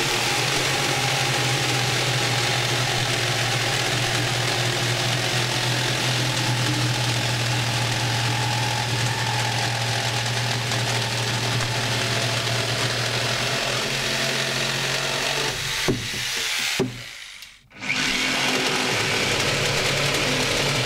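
Two jigsaws running at once, each cutting through a thick planed spruce beam: a steady, dense saw drone. About seventeen seconds in it cuts out briefly and comes back with another pair of jigsaws cutting.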